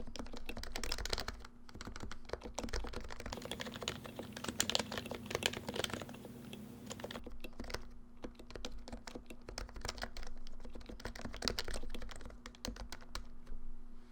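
Typing on an HHKB Professional JP keyboard with Topre electrostatic capacitive switches: rapid runs of keystrokes that thin out briefly a couple of times.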